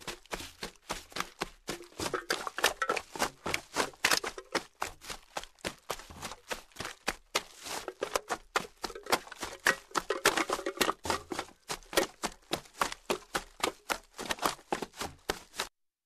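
Footsteps walking through garbage: a steady run of crunching and crinkling trash underfoot, several crackles a second, which stops suddenly near the end.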